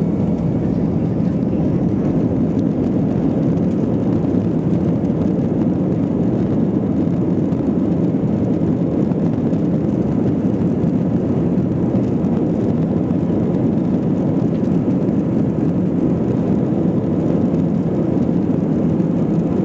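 Airbus A320-232 cabin noise while taxiing onto the runway: a steady rumble of the IAE V2500 engines at low thrust and the cabin air, heard inside the cabin, with no rise in pitch or level.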